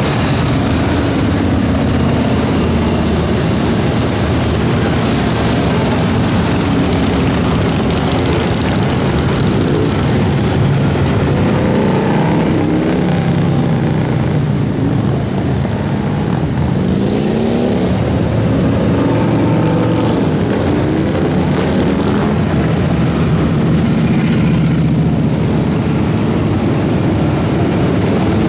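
A steady stream of large cruiser and touring motorcycles rumbling past at parade speed. Individual bikes' engine notes rise and fall in pitch as they go by and shift gears.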